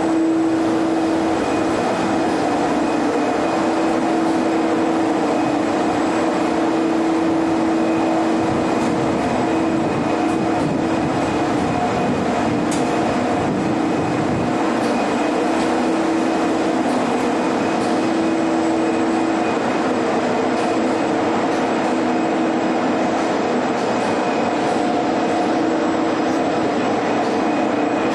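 Ship's machinery running below deck: a steady hum with several constant tones over an even machine noise.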